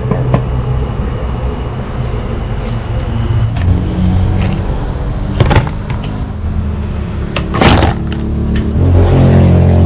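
Clinks and scrapes of a metal ladle and lid against a stainless-steel stockpot, a few separate knocks with the loudest about three-quarters of the way in, over a steady low rumble.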